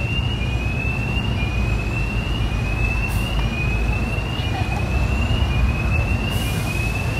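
City street traffic rumble from the road beside a pedestrian promenade. Over it sounds a thin high tone that rises in pitch, drops back, and repeats about once a second.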